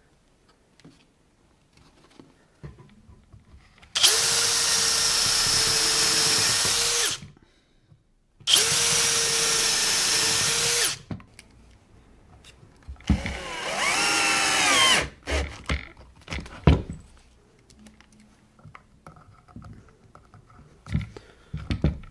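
Bosch 12 V cordless drill-driver running in short bursts on wood: two steady runs of about three seconds each at constant pitch, then a shorter run whose pitch sags and recovers as it drives a screw, followed by a couple of knocks.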